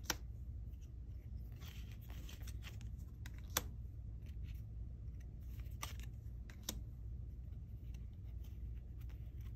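Foil trading cards being handled and shuffled through by hand: soft sliding and rustling of card stock, with a few sharp snaps of card edges, the loudest about three and a half seconds in, over a low steady hum.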